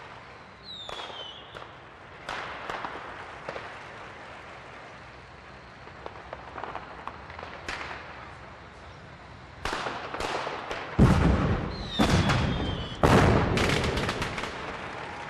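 Fireworks: scattered sharp bangs and crackle, with two falling whistles, one about a second in and one about twelve seconds in. The loudest, densest run of bangs comes about two thirds of the way through.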